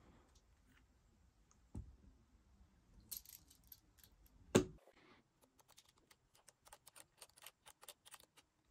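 A sharp knock a little past the middle, then a run of light, quick clicks, several a second, as a precision screwdriver turns the iPhone 8's bottom pentalobe screws back in to secure the reseated screen.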